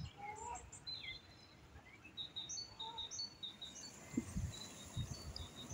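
Songbirds chirping and singing, with short high chirps repeated through the middle. A few low dull thumps come near the end.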